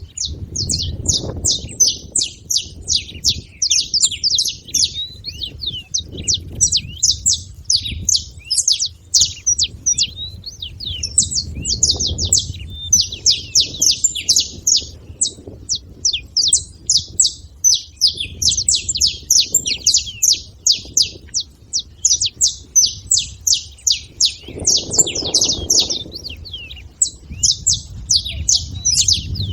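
Several saffron finches chirping and calling nonstop, many rapid high chirps overlapping one another. A low rumble comes and goes underneath.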